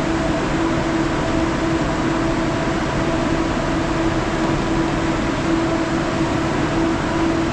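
Steady hum and rushing air of an airport railway station platform, with a constant mid-pitched drone from machinery running on or beside the platform.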